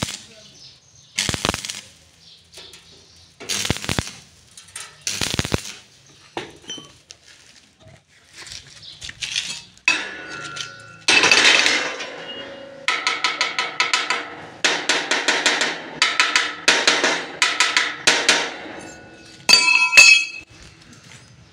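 Arc welding on a steel gate frame: the arc crackles and sputters in a string of short welds, each about a second long. A few short, sharp bursts come in the first few seconds, and a brief burst with a ringing tone comes near the end.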